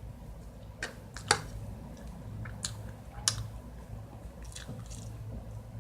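Close-up chewing of soft, wet fruit salad, with a few sharp, wet clicks spread through it, the loudest about a second and a quarter in and again past three seconds.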